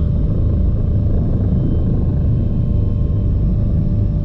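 Bell 429 twin-turbine helicopter running steadily: a loud, even low rumble of rotor and engine noise with a faint steady whine above it.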